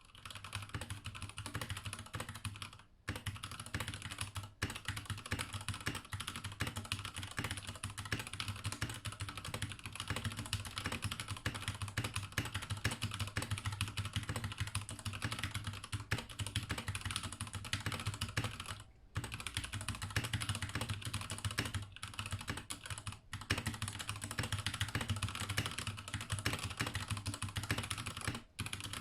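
Keychron K8 mechanical keyboard with stock Gateron Red linear switches being typed on in fast, continuous keystrokes, with a few brief pauses.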